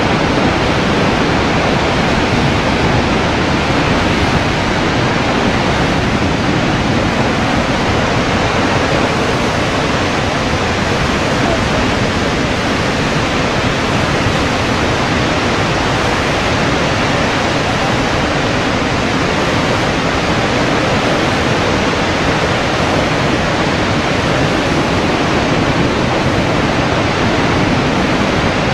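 Horseshoe Falls at Niagara, a massive waterfall, giving a loud, steady, unbroken rush of falling water.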